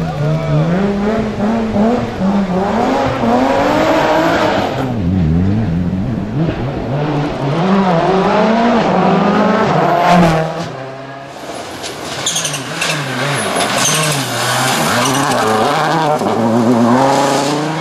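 Rally car engine revving hard, its pitch climbing and dropping again and again through gear changes and lifts, with tyre squeal. A sharp crack comes about ten seconds in.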